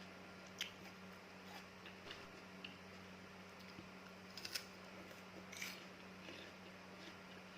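Fresh fruit pieces being bitten and chewed, heard as a few short, crisp crunches spaced out over several seconds.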